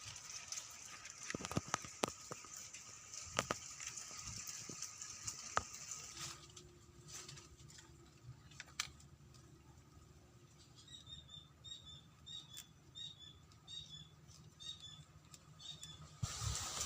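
Scattered light clicks and rustling, then a small bird calling a quick series of short, high chirps for about five seconds.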